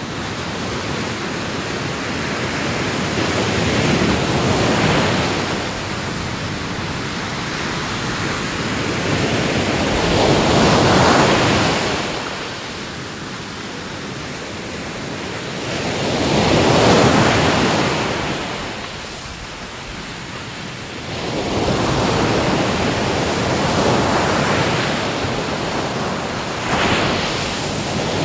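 Ocean waves breaking and washing on a shore in a steady rhythm, a swell of surf every five to six seconds with quieter ebbs between.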